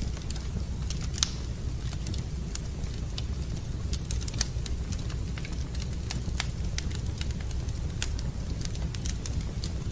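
Wood fire burning in a fireplace, crackling and popping at irregular moments over a steady low rumble, with the two loudest pops about a second in and just past four seconds in.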